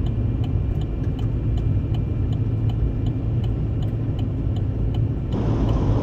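Heavy truck's engine and road noise heard from the cab, a steady low rumble while driving. A faint regular ticking runs under it, about two ticks a second.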